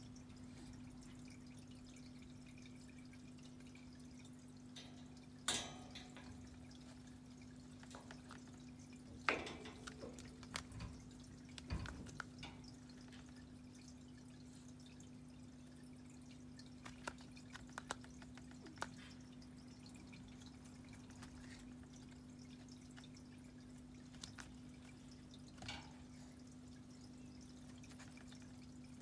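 A few scattered light taps and knocks, a kitten pouncing on and batting at a mouse, over a steady low hum; the loudest knocks come about five and nine seconds in.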